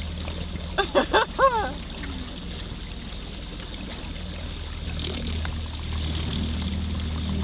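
A 24-volt electric trolling motor drives the canoe with a steady low hum and a faint high whine, like a plane getting ready to start up. Water washes along the hull underneath.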